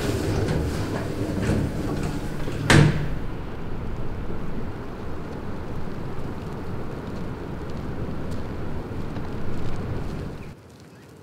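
A heavy thud about three seconds in, over a steady rumbling noise that cuts off suddenly near the end.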